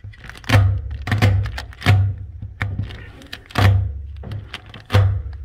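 A tape-wrapped hand is dabbed against the underside of a corrugated metal roof, making about seven hollow bangs, roughly one a second, each with a brief low boom from the sheet metal.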